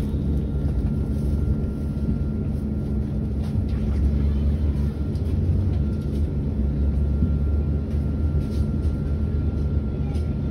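Solaris Urbino 18,75 electric hydrogen fuel-cell articulated bus standing with its doors open, its on-board systems running with a steady low drone and a faint steady high whine.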